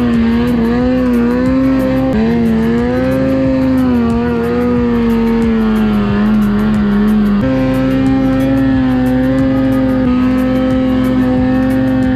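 2010 Ski-Doo Summit XP 800R snowmobile's two-stroke twin running at high revs under load in deep powder. Its pitch holds high and steady with small wavers, sags a little midway and steps up again about seven and a half seconds in.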